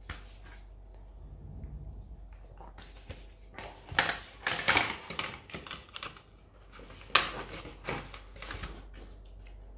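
Clicks and rustles of a disc steelbook being handled as its discs are shown, with a cluster of clicks about four to five seconds in and one sharp click about seven seconds in.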